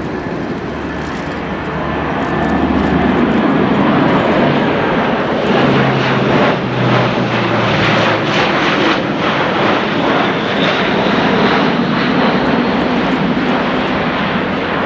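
An Airbus A400M Atlas passing on its four TP400-D6 turboprops: a loud propeller and engine drone. It builds over the first few seconds, holds at its loudest through the middle, and eases slightly near the end.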